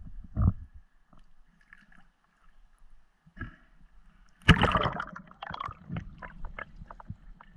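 Small water sloshes at the surface, then a loud splash about four and a half seconds in as a spearfisher dives under, followed by underwater gurgling and crackling clicks.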